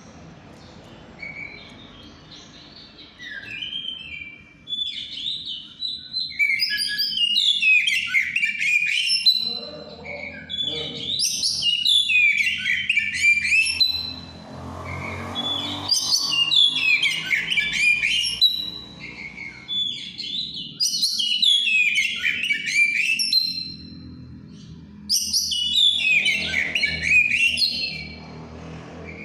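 Oriental magpie-robin (kacer) singing loud, varied whistled phrases in repeated bursts of a couple of seconds with short pauses between; the keeper presents this free-flowing song as that of a bird in over-birahi (high breeding excitement) condition.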